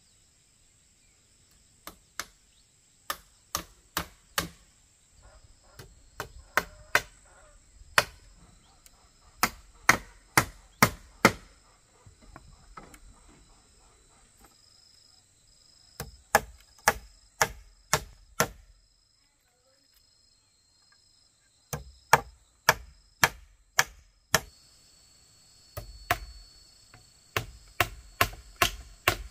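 Hammering on a coop wall of wooden poles with a wooden-headed mallet: sharp knocks in runs of four or five, about two a second, with short pauses between runs. A steady high insect chirr runs underneath.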